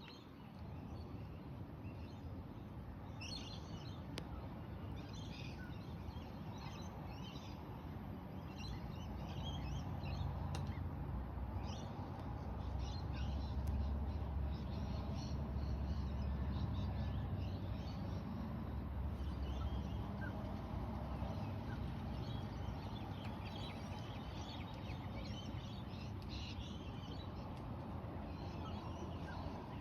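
Many small birds chirping and twittering in short, overlapping bursts, over a steady low rumble that swells in the middle and eases off again.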